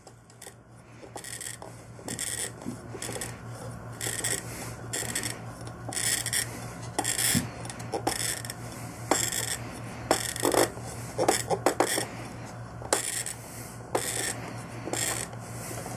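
Glass-cutter wheel scoring a glass bottle as it is turned by hand in a wooden jig, heard as short, scratchy strokes of glass being scored. It is a light, single-line score, and the crunch where the line meets its start does not come.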